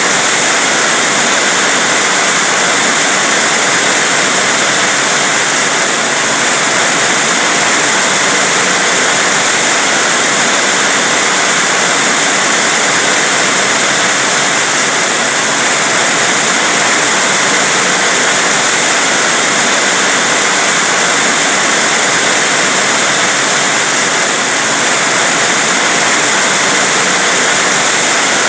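Heavy rain falling in a loud, steady hiss, with no separate drops or hits standing out.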